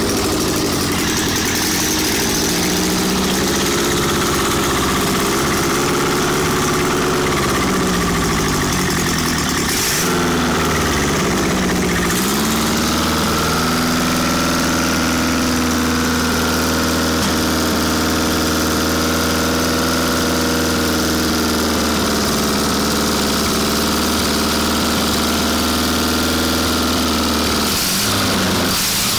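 Rebuilt air-cooled VW Beetle flat-four engine (a 1300 AB block fitted with 1600 cylinders and pistons and a sharp cam) running out of the car. Its speed wavers up and down for the first ten seconds or so, settles to a steady speed for most of the rest, and changes again near the end.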